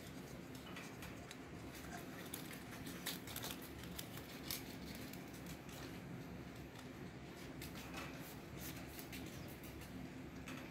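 Faint rustling and scattered light clicks as a hand strokes a rabbit lying in a metal bowl, over a steady low hum.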